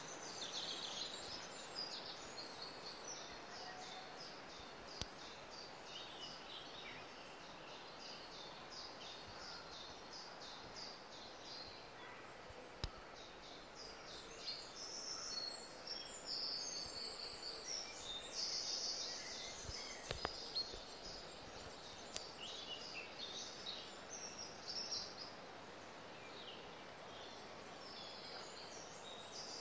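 Several wild birds singing and chirping: many short, high-pitched calls and trills over a faint steady hiss, with a few soft clicks.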